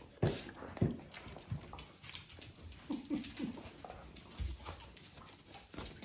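A small dog's paws and claws thump and tap on a cork floor as it jumps up against a person's legs, with several sharp thumps in the first second and a half. About halfway through come three short, low, voice-like sounds.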